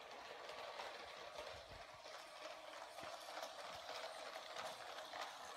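Remote-controlled Lego passenger train running along plastic track: a steady motor whir with a rapid, uneven clicking of its wheels over the track.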